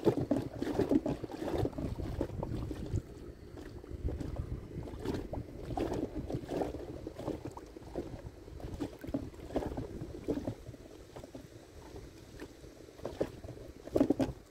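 Small waves lapping and slapping irregularly against the hull of an inflatable boat, with a low wind rumble on the microphone underneath.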